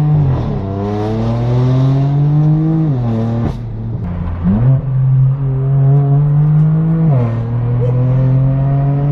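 BMW M4 F82's twin-turbo inline-six, through a straight-piped AWE Track exhaust with no resonators, accelerating hard through the gears. The engine note climbs in pitch and drops sharply at each upshift: near the start, about three seconds in and about seven seconds in.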